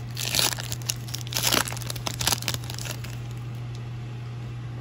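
Glossy baseball trading cards being shuffled by hand, sliding and rustling against each other in short brushes for about three seconds, then stopping. A steady low hum runs underneath throughout.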